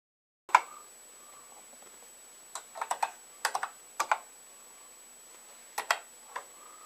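Typing on a BBC Micro Model B keyboard: short runs of key clicks, a few keystrokes at a time with pauses between them.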